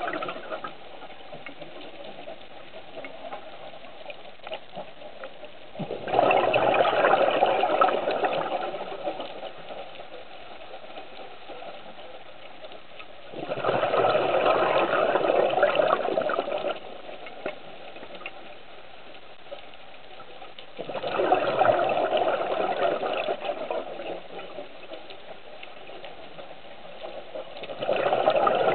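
Scuba diver's exhaled air bubbling out of a regulator underwater: a rushing, gurgling surge of bubbles lasting two to three seconds, repeating about every seven to eight seconds with each breath out, and a quieter hiss between breaths.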